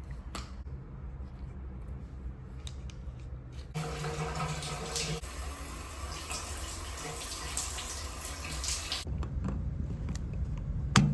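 Water running from a faucet, turned on about four seconds in with a brief low hum in the pipes as it opens, then shut off about five seconds later.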